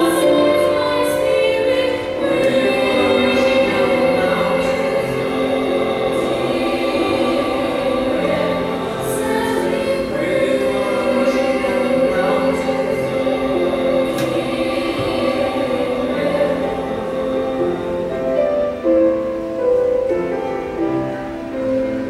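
Mixed high-school choir singing in harmony with piano accompaniment, holding long sustained chords, growing somewhat softer near the end.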